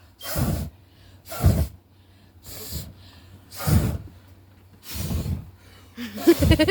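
A person breathing heavily close to the microphone, about one loud noisy breath a second.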